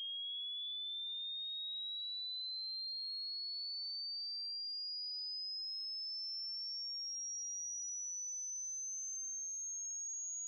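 Hearing-test sine-tone sweep: a single pure, high, thin tone climbing steadily in pitch at an even loudness, used to estimate how high a listener can hear.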